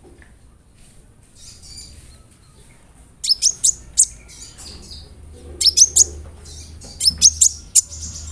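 Kolibri ninja sunbird singing: three quick bursts of sharp, high chirps, each of several notes, come in the second half, after fainter calls. A low steady hum runs underneath.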